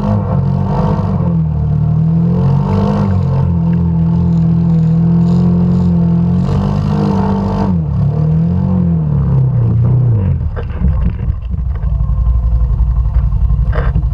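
Arctic Cat Mud Pro ATV engine revving up and down while the quad is towed out of the mud on a rope, then settling to a lower, steady idle about ten seconds in.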